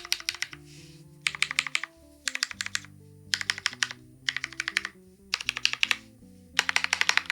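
Bina 103 mechanical keyboard with linear Hyperglide MX Black switches on an aluminium plate and GMK keycaps, typed in quick runs of keystrokes with short pauses between, about seven runs. Soft background music plays underneath.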